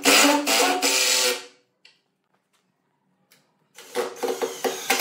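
Cordless impact driver driving screws into wood, running with a whine and rapid rattle. The first screw stops about one and a half seconds in, and after a pause a second run starts near the end.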